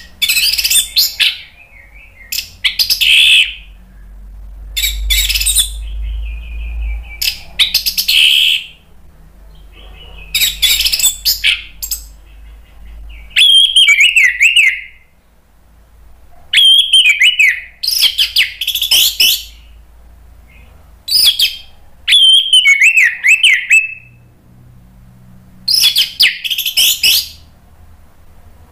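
Orange-headed thrush (anis merah) singing loud, full-voiced song: about a dozen short phrases of rapid whistled and warbled notes, some zigzagging up and down, each a second or two long with brief pauses between.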